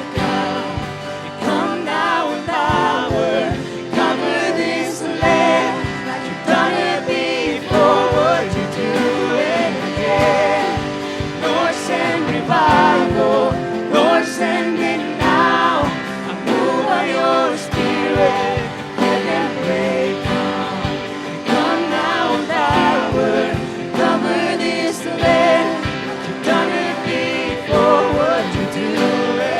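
A worship song: voices singing over guitar-led band accompaniment with a steady beat.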